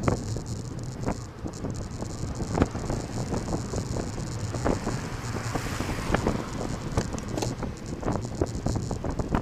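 Wind noise on a bicycle-mounted camera's microphone over road rumble, broken by many short rattling knocks from bumps in the road. An oncoming car swells past about five to six seconds in.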